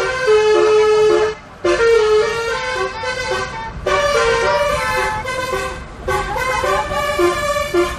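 Multi-tone telolet bus air horn playing a tune, its notes stepping up and down, with brief gaps between phrases.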